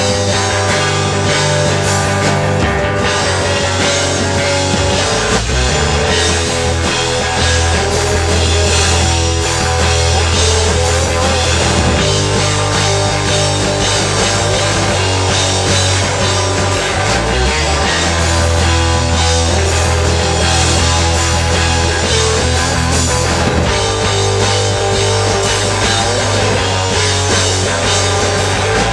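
Rock band playing live, with guitar and drums over a bass line that changes note every few seconds.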